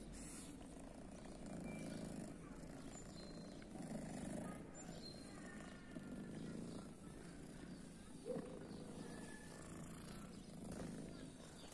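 Domestic tabby kitten purring close to the microphone while she is stroked, the purr swelling and fading every second or two. There is a brief sharp sound about eight seconds in.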